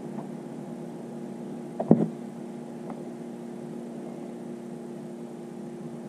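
Steady electrical hum holding several fixed pitches, with one short knock about two seconds in.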